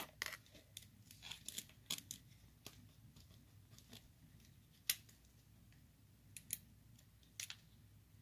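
Irregular light clicks, taps and scrapes of multimeter test probes being handled and pressed against a small battery's terminals, struggling to make good contact.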